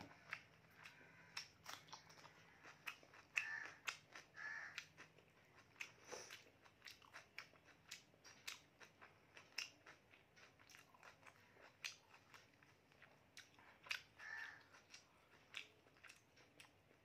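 Close-miked eating sounds: chewing and wet lip smacks and mouth clicks as a handful of rice and mutton curry is eaten with the fingers, a steady run of small sharp clicks.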